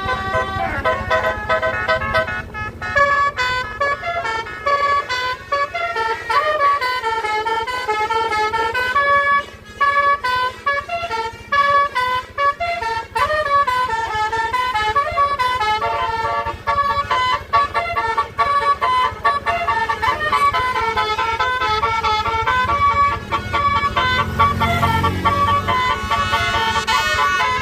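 Tour bus's Basuri telolet horn playing a long melody of quick notes stepping up and down, with a few short breaks. A low rising sound swells briefly near the end.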